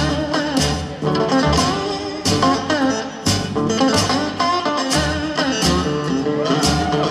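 Live acoustic blues band playing: acoustic guitars with a lead line that slides between notes, over upright bass and drum hits.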